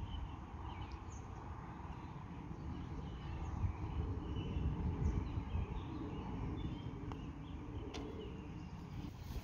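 Outdoor ambience on a golf green: low wind rumble on the microphone with faint bird chirps scattered through, and a single light click about eight seconds in.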